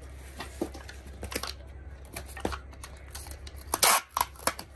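Cardboard box being handled and its flaps pressed shut, with scattered light taps and rustles, then about four seconds in a short, loud rip of packing tape drawn off a handheld tape dispenser across the box.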